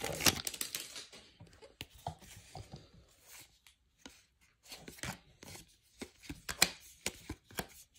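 Foil wrapper of a baseball card pack crinkling briefly at the start, then a run of short clicks and slides as a hand flicks through the stack of cards one by one.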